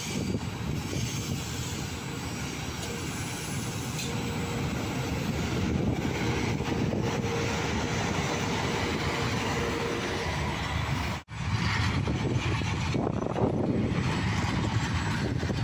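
Electric freight train passing close alongside a station platform: a steady rumble of wheels on rail with the hiss and rattle of the wagons. The sound breaks off for an instant about eleven seconds in, then carries on.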